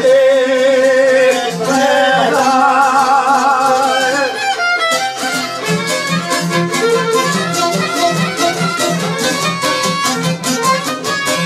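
Bosnian izvorna folk music played live on two violins and a šargija (long-necked lute), with another plucked string instrument. Voices hold a wavering sung line through the first four seconds. After a short break about four and a half seconds in, the band carries on instrumentally with fiddles over a fast, even strummed rhythm.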